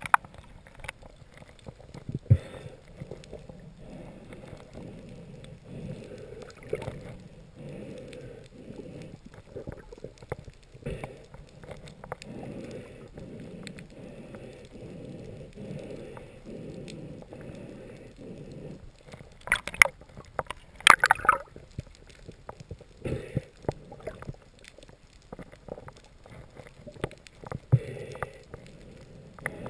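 Muffled underwater noise picked up through a camera housing, a low swishing that pulses about every half-second to second. It is broken by a few sharp knocks, with a cluster of loud clicks about twenty seconds in.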